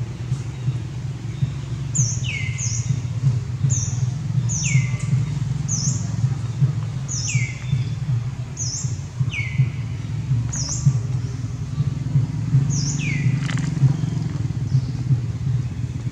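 Bird calls: from about two seconds in, a dozen or so short high chirps that sweep sharply downward, several in quick pairs. They sit over a steady low hum, which is the loudest sound.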